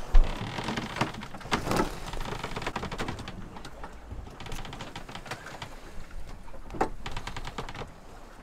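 Handling noises around a metal baking tray and food: irregular light clicks and taps, with a few sharper knocks near the start, about two seconds in and about seven seconds in.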